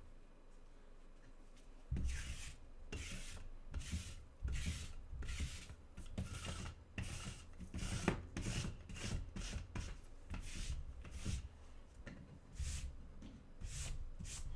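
Cardboard trading-card boxes being slid and pushed across a tabletop: a run of repeated scraping rubs with soft bumps, starting about two seconds in.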